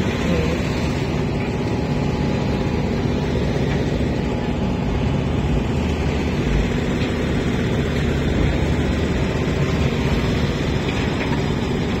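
Engine-driven machinery running steadily: a constant low drone with a noisy rumble over it, unchanging throughout.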